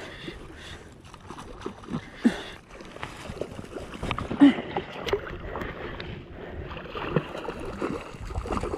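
Shallow sea water sloshing and splashing as a hooked sea bass is played on a spinning rod, with irregular small taps and a sharper splash about halfway through.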